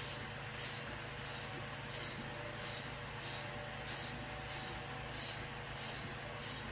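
Hand ratchet turning the forcing screw of a three-jaw harmonic balancer puller, a short burst of pawl clicks on each return stroke, about one every two-thirds of a second, as the balancer is drawn off the crankshaft.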